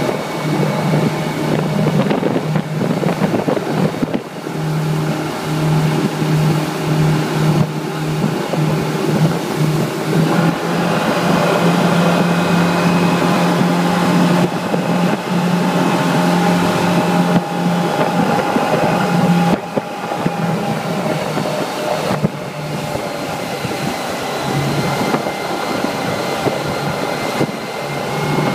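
Twin Suzuki outboard motors running at speed on a speedboat: a steady engine drone over wind and water noise from the wake.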